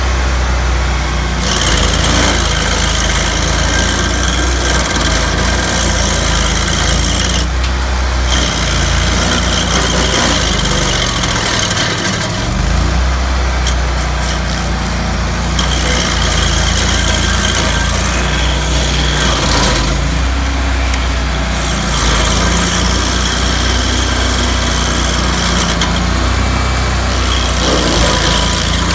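Stump grinder's engine running steadily while its cutter wheel grinds into tree roots. A high grinding sound comes and goes over the engine in about five passes of several seconds each, and the engine dips briefly near the middle.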